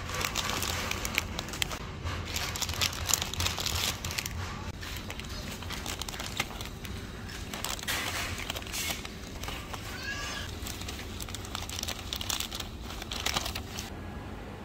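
Plastic spice packets crinkling and rustling in irregular bursts as they are picked up and handled, over a steady low hum.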